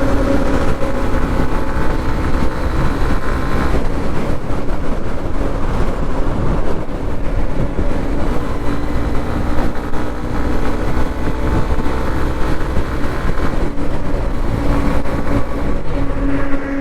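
Motorcycle riding at highway speed: wind rushing over the microphone with the engine running steadily underneath.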